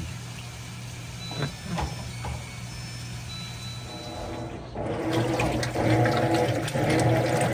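Maytag commercial washer running a test cycle with a newly fitted motor pulley and belt: water filling over a steady hum, then about five seconds in a louder steady mechanical churning starts as the drum gets going.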